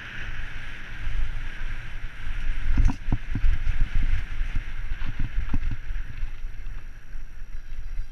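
Mountain bike riding fast over a rough dirt track, with wind buffeting the camera's microphone and a steady low rumble from tyres and frame. Several sharp knocks come over bumps, around three seconds in and again around five seconds.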